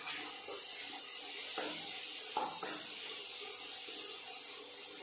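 Vegetables frying in oil in a nonstick pan, a steady sizzling hiss, with a wooden spatula stirring and scraping through them a few times.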